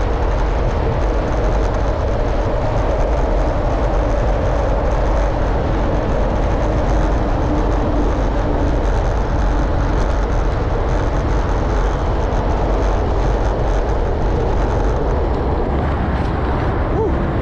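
Steady, loud wind noise on the microphone mixed with road rumble from a road bike riding through a road tunnel.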